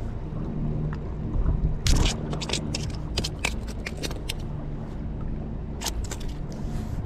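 Handling noise from a just-caught striped bass: about two seconds in, a run of sharp clicks and scrapes lasting a couple of seconds, and a few more about six seconds in, over a steady low hum.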